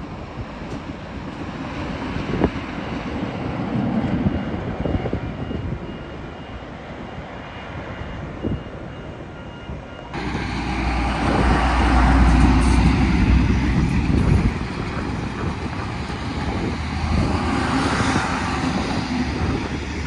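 NSW TrainLink XPT carriages rolling past a level crossing, wheels rumbling on the rails, with the crossing bell ringing faintly and evenly. About halfway the sound cuts to a louder, deeper rumble.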